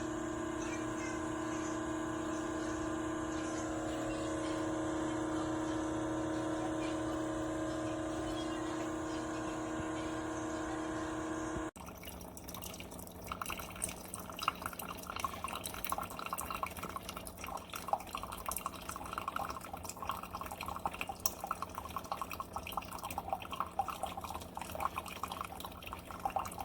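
Amazon Basics single-serve K-Cup coffee maker brewing. A steady pitched hum runs for about twelve seconds and cuts off suddenly. It is followed by a crackling patter of many small drips as liquid dribbles and sputters into the cup.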